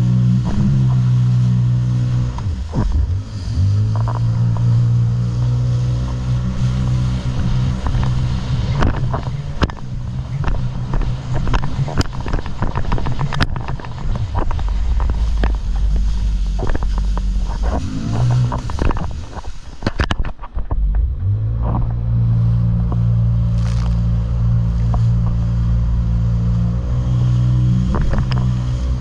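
Jet ski engine running at speed, a steady pitched drone. It is overlaid by water spray and slaps of the hull on the waves, which are thickest in the middle stretch. Near two thirds through, the engine note drops away briefly and then picks up again.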